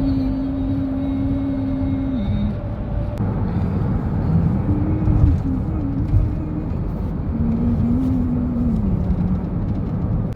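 A man humming with his mouth as self-made background music: one long held note, then a short wavering tune from about four seconds in, over a steady rumble of car road noise.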